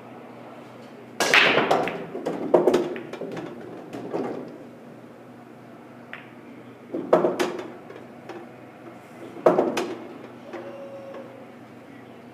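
Pool break shot: the cue ball cracks into the 9-ball rack about a second in, followed by a clatter of balls knocking together, hitting the cushions and rolling across the table. Two more short clatters of balls come about seven and nine and a half seconds in.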